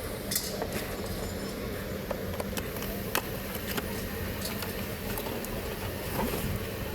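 Steady low mechanical rumble with scattered faint clicks and taps over it.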